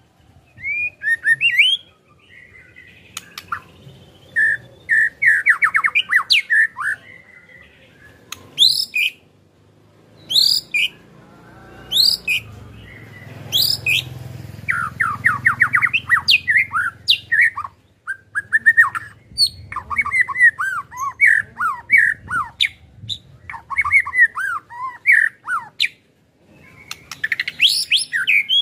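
White-rumped shama singing a loud, varied song of fast whistled phrases, sweeping notes and sharp high calls. Rapid rattling trills (the 'ketrekan' style) come about five seconds in and again around fifteen seconds.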